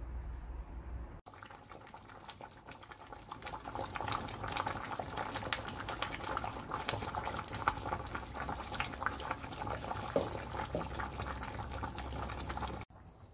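Pork back-bone and cabbage stew boiling hard in a pot: a dense, irregular bubbling and popping. It starts after a low hum at about a second in and cuts off near the end.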